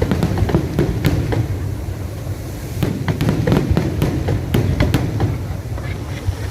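Fireworks display going off: many sharp bangs and crackles in quick, irregular succession over a continuous low rumble.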